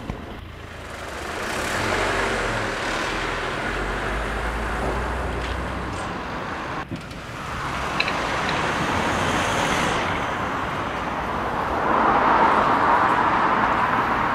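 Road traffic on a town street: the low rumble of a motor vehicle's engine, then cars driving past, growing louder near the end.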